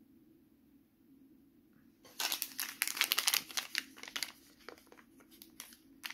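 A small sealed Stikeez toy packet crinkling as it is worked and torn open by hand: a dense run of sharp crackles starting about two seconds in.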